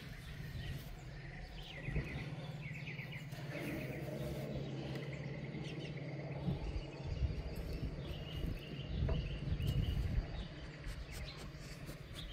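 Small birds chirping in short repeated trills, over a low steady hum that fades out about halfway through.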